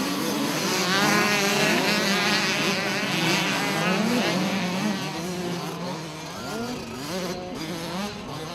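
A pack of 65cc two-stroke motocross bikes revving together, many engine notes rising and falling against each other as the riders work the throttles. Loudest in the first half, then fading as the bikes pull away.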